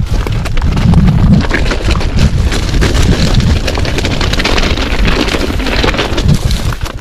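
Commencal Meta TR 29 mountain bike riding down a rough, rocky trail: tyres rolling and knocking over stones and the bike rattling in a dense, irregular run of clicks, over a low rumble of wind on the microphone.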